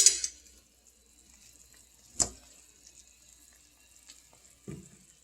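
A few brief clinks and scrapes of a utensil against a dish while working cooked chicken off the bone: a sharp scrape at the start, a knock about two seconds in, and faint small sounds near the end, with quiet between.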